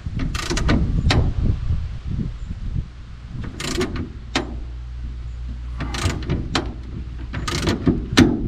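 Click-type torque wrench on a 15/16 bolt being pulled up toward its 70 foot-pound setting: a string of sharp metallic clicks from the wrench's ratchet head, several single or paired, with a quicker run of clicks near the end, over a low background rumble.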